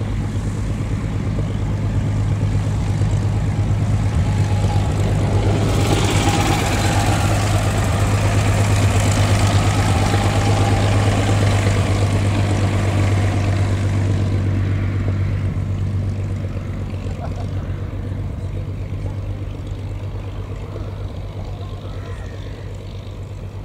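A de Havilland Dragon Rapide biplane's two six-cylinder piston engines running as it taxis past, a steady low drone. It swells about six seconds in and fades away over the last ten seconds as the aircraft moves off.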